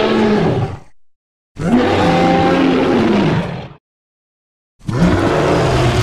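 Sound-designed Carcharodontosaurus roars: deep calls about two seconds long over a low rumble, separated by dead silence. One roar fades out in the first second, a full one follows, and a third starts near the end.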